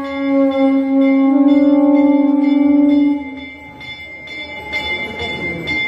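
A single long blown horn note, held for about three and a half seconds with a wavering middle, over a small bell struck over and over at an even pace. After the horn stops, a crowd's voices fill in.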